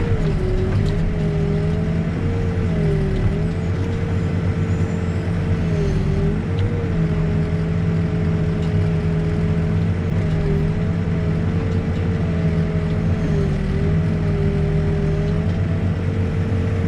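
Backhoe's diesel engine running steadily at working speed, its pitch dipping briefly every second or two as the hydraulics take load while digging.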